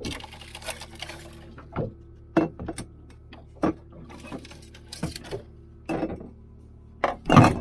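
Plastic water bottles and drink cans being pulled out of a storage bin: crinkling plastic at the start, then a string of knocks and clunks, the loudest near the end. A steady low hum runs underneath.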